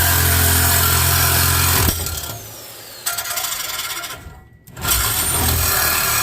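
Electric power saw, likely a reciprocating saw, running steadily while cutting through old exhaust pipe under a car. It stops about two seconds in, then runs again in noisier bursts.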